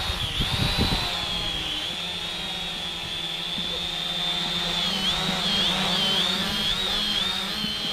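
Potensic quadcopter drone hovering close overhead: the high, steady whine of its propeller motors, wavering up and down in pitch in the second half as the motors correct its hover. A low, gusty rumble of wind on the microphone runs underneath.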